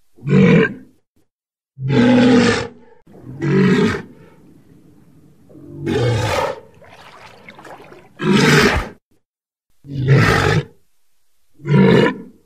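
Walrus calling in a run of short, loud, pitched calls, each about half a second long, coming every one and a half to two seconds, seven in all. A quieter rasping stretch follows the fourth call.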